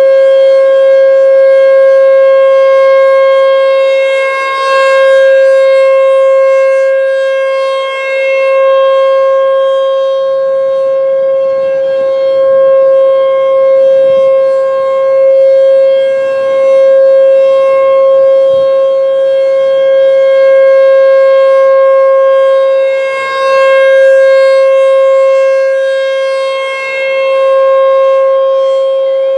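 American Signal T-128 electronic siren sounding a steady, unchanging tone at full volume, its loudness swelling and dipping slowly as the rotating horn array sweeps past.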